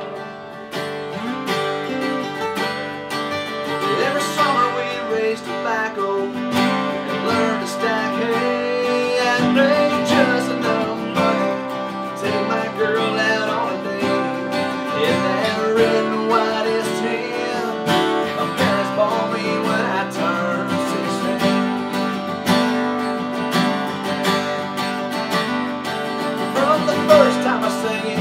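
Two acoustic guitars playing an instrumental break in a country song: steady strummed chords under a picked melody line.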